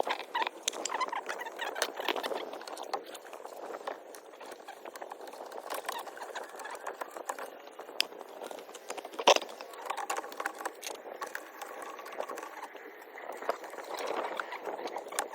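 Motor oil glugging and gurgling as it is poured from a 4-litre jug into the engine's oil filler, in uneven bursts with small clicks and knocks.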